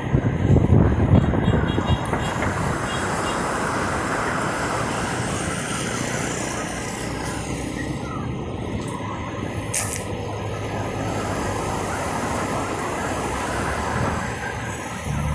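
Airplane passing overhead: a steady, broad rumble, louder and lower in the first two seconds, with a short sharp click about ten seconds in.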